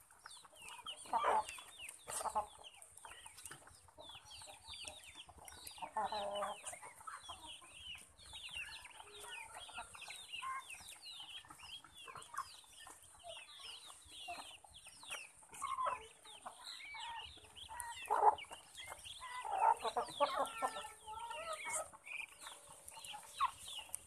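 A flock of chickens clucking and chattering as they feed. Many short high calls run throughout, with louder clucks breaking in now and then.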